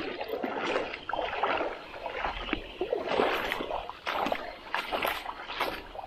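Shallow creek water splashing in repeated, irregular bursts.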